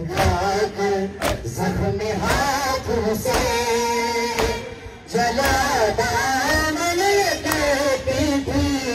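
Male mourners chanting a noha together, the sung lines wavering and rising, with a short pause about halfway through. Sharp slaps from the crowd's chest-beating (matam) are heard now and then between the lines.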